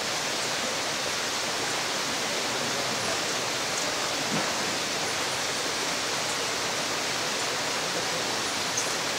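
A steady, even rushing hiss, like running water, that stays the same throughout, with a couple of faint ticks.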